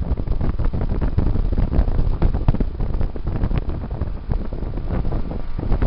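Wind buffeting the microphone in irregular gusts over the steady running of a 3-ton Goodman heat pump outdoor unit in cooling mode.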